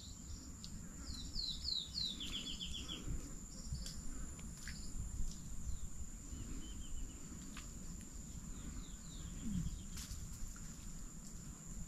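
Outdoor ambience: a bird calls a quick run of falling chirps about a second in and again, fainter, near the end, over a steady high insect drone and a low background rumble.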